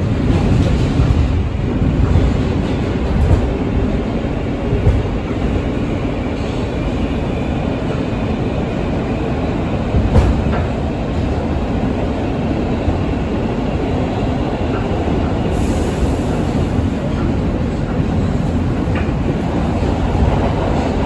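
NYC Subway L train running at speed, heard from inside the car: a steady rumble of wheels and motors on the rails, with a few sharp knocks from the track, the loudest about ten seconds in.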